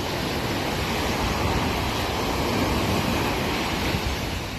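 Ocean surf breaking and washing up the sand in a steady rush, swelling to a peak midway and easing near the end.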